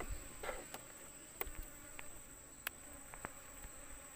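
Insects droning on one steady high-pitched tone, with a few sharp clicks.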